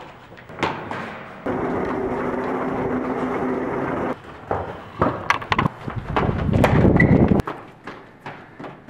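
Running footsteps and thuds on a hard hallway floor, with sharp clicks and a short sneaker squeak near the end. A steady rush of background noise cuts in and out abruptly.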